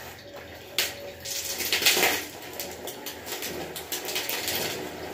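Hands scrubbing shampoo lather through long wet hair: wet squishing and crackling of the foam in irregular bursts, loudest about two seconds in.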